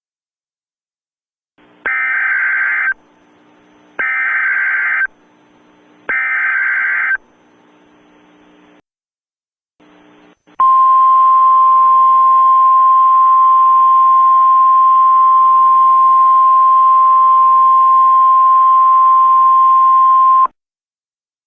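Emergency Alert System tones: three data-header bursts of about a second each, roughly two seconds apart, over faint radio-like static. After a short break comes a single long, steady attention tone lasting about ten seconds, which cuts off sharply before the spoken bulletin.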